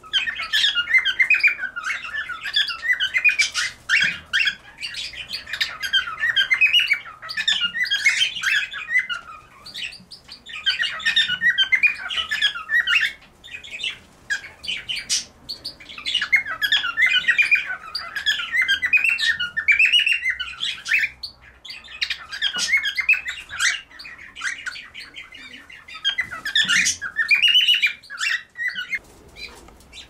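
Aviary birds chattering and squawking in dense, rapid bouts of several seconds, with short pauses between.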